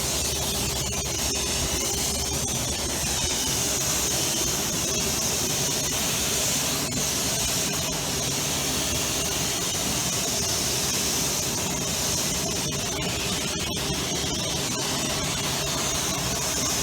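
Loud, steady hissing spray, with a low steady hum beneath it.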